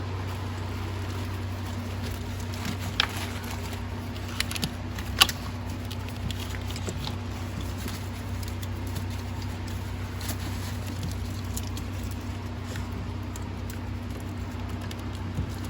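Scattered clicks and knocks of hand tools and parts being handled while working on the engine, the sharpest a little past five seconds in, over a steady low hum.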